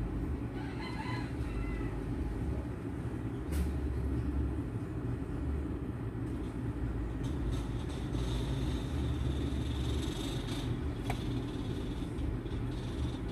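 A steady low rumble, with a brief wavering high call about a second in and a few faint clicks.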